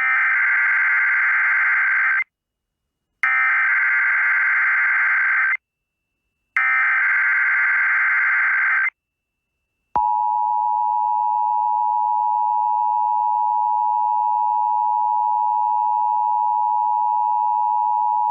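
Emergency Alert System SAME header: three bursts of rasping digital data tones, each about two seconds long and about a second apart, coding a Tornado Watch. About ten seconds in, the steady two-tone EAS attention signal begins.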